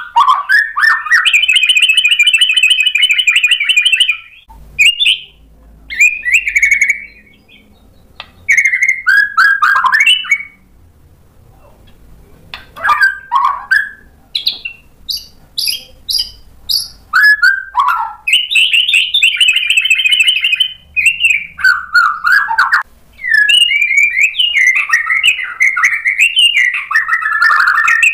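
Male white-rumped shama (murai batu) in full song, a varied string of learned phrases. A fast, rattling trill near the start, then separate whistled and chattering phrases with short pauses, another trill about two-thirds through, and almost unbroken song near the end.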